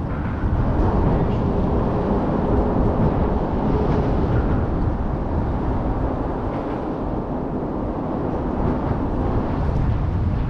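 Wind blowing across the microphone, a steady low rush.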